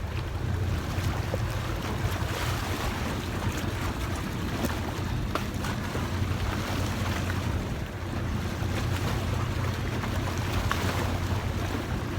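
Sea waves washing and splashing against rocks, a steady surf noise with scattered brief splashes, under a low rumble of wind on the microphone.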